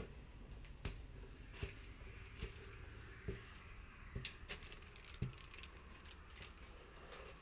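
Footsteps on gritty concrete stairs and floor: short scuffing knocks about one a second, with a faint steady hiss beneath.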